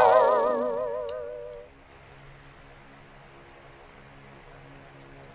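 A single loud wavering tone with a fast, even vibrato, fading away over about a second and a half. After it only a faint steady hum remains.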